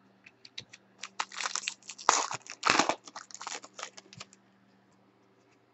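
Foil wrapper of a Panini Select basketball card pack being torn open and crinkled by hand: a run of crackling starting about a second in and stopping after about three seconds.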